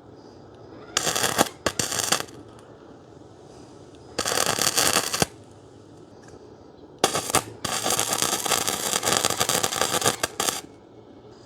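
Wire-feed MIG welder arc crackling and sputtering in five short welding bursts, the last and longest about three seconds, with quiet gaps between as the trigger is released.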